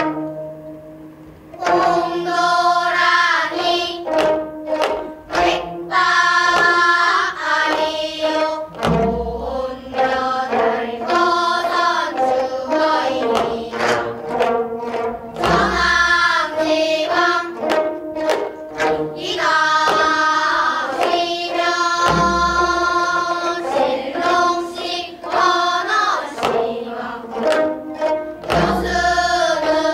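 A children's ensemble singing in unison while plucking twelve-string gayageum (gayageum byeongchang), performing a danga. A drum gives a deep stroke about every six and a half seconds.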